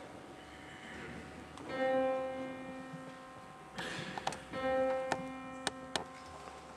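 The same piano note struck twice, about three seconds apart, each ringing on and slowly fading. A few sharp clicks and knocks fall between and after the notes.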